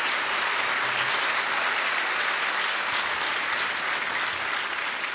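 Audience applauding steadily, the applause easing off slightly near the end.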